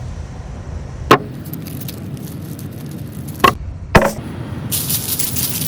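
Three sharp knocks over a low rumble, then near the end a dense crackling hiss sets in.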